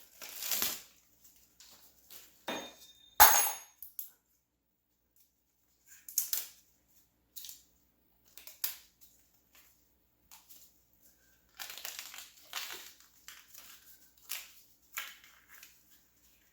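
Plastic packaging crinkling and rustling in irregular bursts while a new bicycle inner tube is handled, with one sharp knock about three seconds in.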